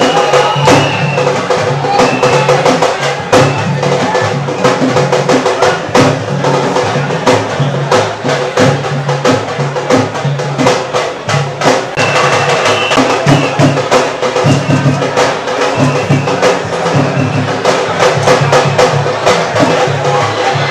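Fast drumming with many sharp strikes, over the voices of a crowd.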